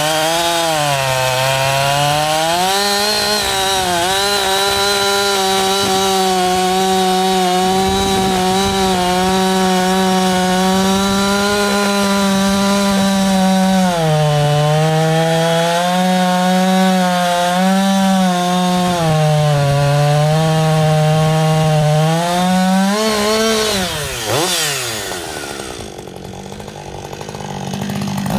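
Husqvarna 560 XP 60 cc two-stroke chainsaw with an 18-inch bar cutting into a large beech trunk at full throttle, its engine pitch dipping and recovering under the load of the cut. About three quarters of the way through the pitch jumps briefly, then falls away to idle, with a short rev near the end.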